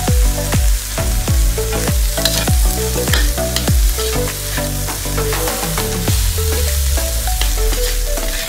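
Stir-fry of chopped fish intestines, chillies and shallots sizzling in oil in a pan, with a spatula stirring and scraping. Background music with a steady beat of about three strokes a second plays over it.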